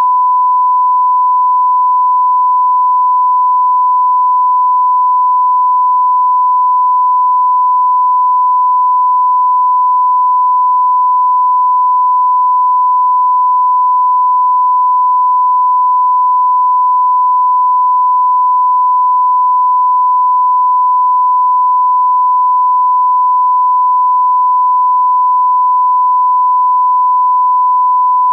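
A 1 kHz sine test tone, the pure reference beep that goes with a TV test card. It holds one pitch at one level without a break.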